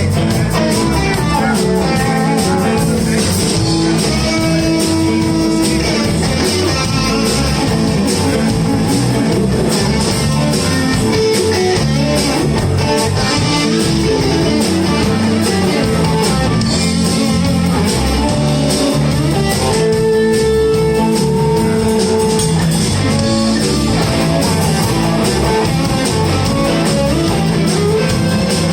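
Live blues band playing an instrumental break: electric guitars over bass and drums, with a melodic lead line on top.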